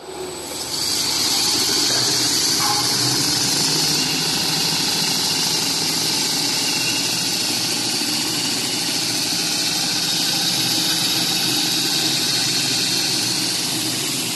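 Semi-automatic plastic-film rewinder running, its rollers spinning as clear film winds from a large roll onto a small one. It comes up to full level within about the first second, then holds a steady high hiss over a lower machine hum.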